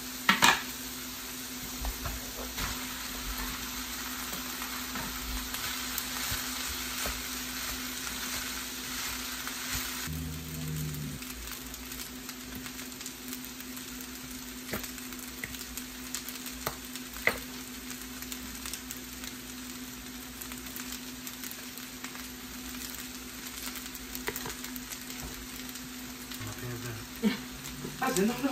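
Diced vegetables and rice sizzling in a frying pan on the stove, a steady hiss that is louder for the first ten seconds or so and quieter after. A few sharp clicks and taps from utensils and containers, with a steady low hum underneath.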